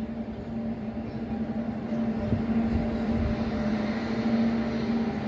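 WAG-9 electric locomotive passing at the head of a freight train: a steady hum with a low rumble of wheels on rails, strongest midway.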